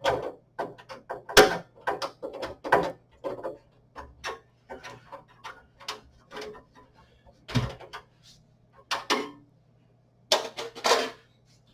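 Irregular metal clicks and knocks of a PC case's expansion-slot cover being worked loose and taken off, with a few louder knocks scattered through and a pair close together near the end. A faint steady low hum runs underneath.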